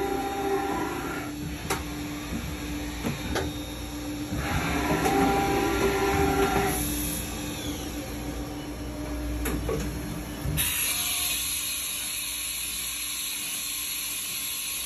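1995 Haas VF-0 CNC vertical mill running under power: a motor whine rises in two bursts of about two seconds each over a steady machine hum, with a few sharp clicks between them. About ten seconds in, a steady loud hiss sets in.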